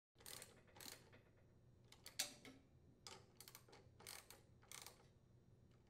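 Faint, irregular clicks and taps of parts being handled as the air inlet pipe is fitted onto a Briggs & Stratton small engine's carburetor and its mounting nuts are put on, with one louder click about two seconds in.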